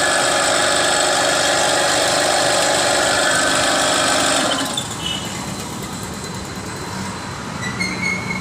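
Compressor's electric motor running loud and steady, its noise coming from the faulty bearing that is about to be replaced. It stops abruptly about four and a half seconds in.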